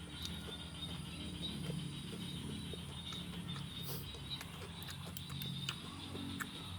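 Close-up chewing of crunchy raw vegetable salad (cabbage, cucumber, long beans) with wet mouth sounds and scattered small crunches and clicks.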